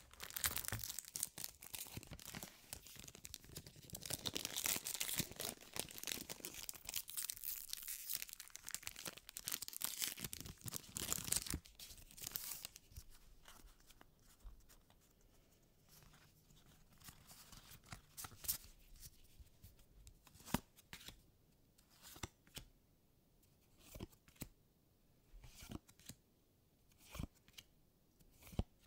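Foil wrapper of a Magic: The Gathering booster pack crinkling and tearing open for about the first twelve seconds. After that come the quieter sounds of the trading cards being handled and slid one behind another, with sharp clicks every second or two.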